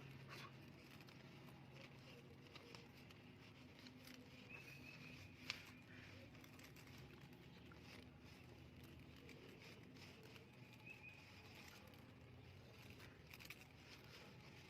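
Near silence: faint background ambience with scattered small clicks and one sharper click about five and a half seconds in.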